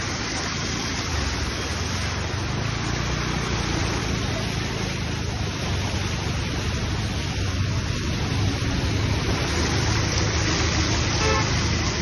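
Fast floodwater rushing down a street: a steady, loud rush of churning water that grows slightly louder.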